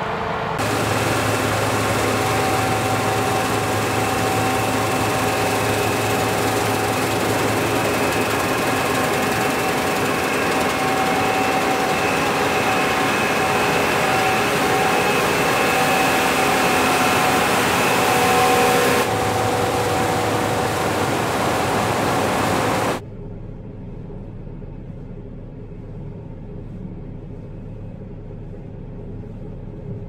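Fendt Ideal 7T combine harvester running steadily, its engine and machinery giving a loud, even hum over a wide hiss. About two-thirds of the way through the sound drops suddenly to a much quieter, steady engine drone.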